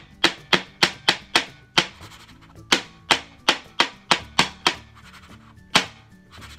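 A loose setting-powder container being tapped: sharp taps about three a second, with a short pause about two seconds in and another near the end.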